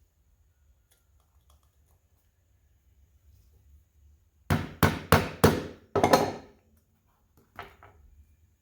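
Small hammer tapping a pick set in the old scissor spring of a small Victorinox Swiss Army knife, to drive the spring out: five sharp taps in quick succession about halfway in, then one lighter tap near the end.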